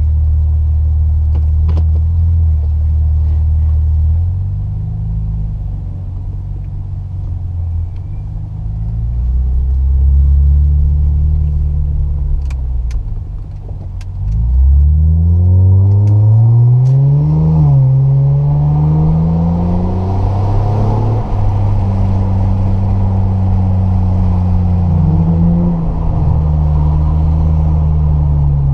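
Acura 3.2 CL Type S V6 exhaust through glasspack mufflers while driving. The engine note wavers at part throttle for the first half. About halfway through it rises steeply under hard acceleration, breaks briefly at a gear change, and climbs again before levelling off and easing.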